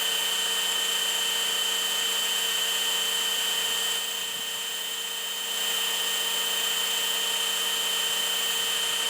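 A small electric power tool running steadily with a high whine, scuffing (roughing up) the smooth end of a graphite golf driver shaft so that glue will grip. It dips a little for a second or so in the middle.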